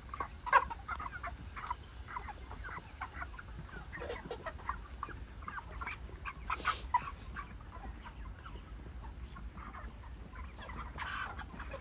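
A flock of broiler chickens clucking, with many short overlapping calls and one louder burst about two-thirds of the way through, over a steady low hum.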